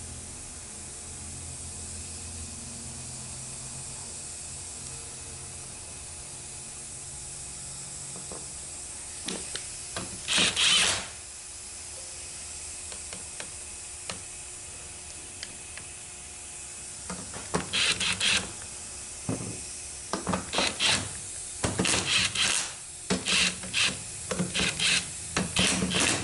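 24-volt cordless driver spinning valve-body bolts in short spurts: one about ten seconds in, another a few seconds later, then a quick run of brief spurts near the end.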